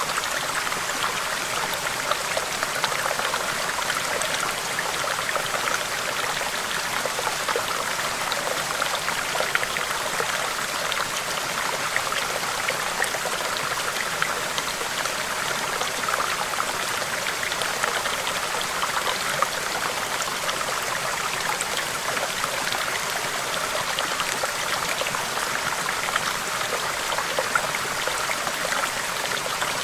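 A small stream babbling over rocks: a steady rush of water with many small splashes and gurgles.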